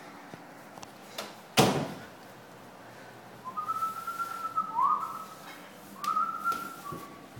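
A single sharp thump about a second and a half in, then several short, high whistling notes, a couple of them gliding upward.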